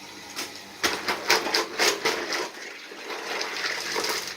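Freshwater mussel (kijing) shells knocking together in quick, irregular clicks as a pile is handled, with water splashing.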